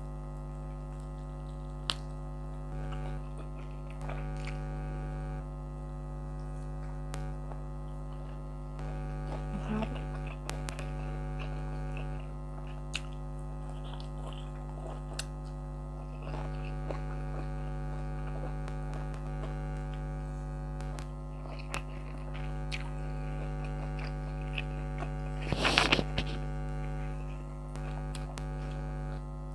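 Air conditioner humming steadily: a low drone made of several fixed tones. Small clicks of eating come and go, with a brief louder crunch near the end.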